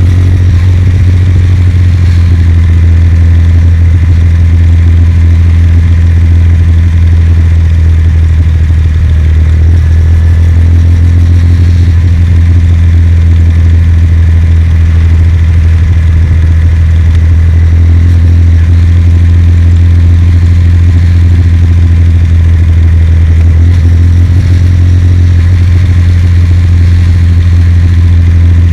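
Kawasaki W800's air-cooled parallel-twin engine running steadily under way, its note shifting slightly a few times as the throttle changes.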